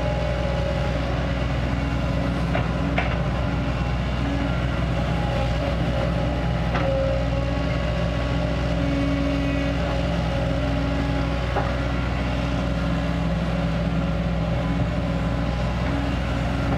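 Kobelco SK200 excavator's diesel engine running steadily at working speed, with a few short sharp knocks about three, seven and twelve seconds in.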